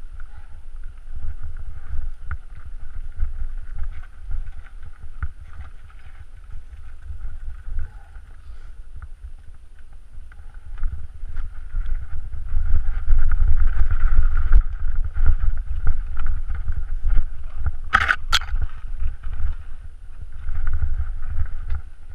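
Mountain bike rolling down a rocky, gravelly singletrack, its tyres and frame rattling over the stones, with wind buffeting the microphone as a heavy, uneven rumble. Two sharp knocks come close together about three-quarters of the way through.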